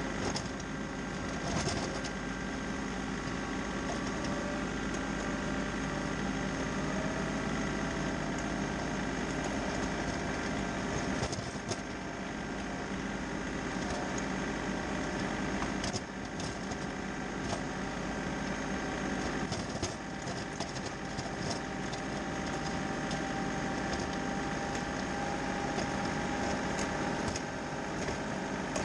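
Engine of a snow-clearing machine running steadily, with crunching and scraping of snow and scattered clicks over it.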